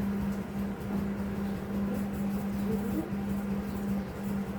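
A steady low machine hum at one unchanging pitch over a low rumble, as of a kitchen appliance running.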